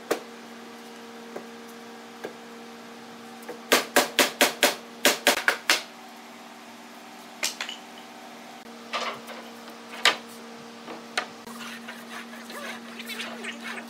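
Hammer blows on a hardwood bed frame being fitted together: about ten quick knocks in two close bursts a few seconds in, then a few single knocks, over a steady low machine hum.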